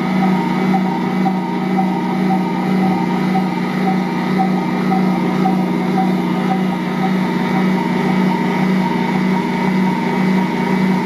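Ankarsrum Assistent Original stand mixer running steadily while kneading a large bread dough: its rotating stainless steel bowl drives the dough round against the dough roller. It gives a steady motor hum with an even, regular pulse.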